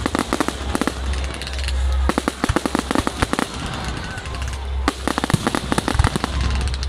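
Fireworks display: clusters of rapid crackling from bursting shells, with a deeper bang about six seconds in and a low rumble underneath in stretches.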